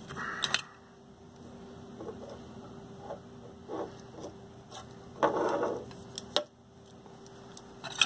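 Workbench handling noise as a small 3D-printed plastic vise holding a soldered XT60 connector is moved and turned on the bench: a few sharp clicks and knocks and one short scraping rustle a little after five seconds in, over a steady faint hum.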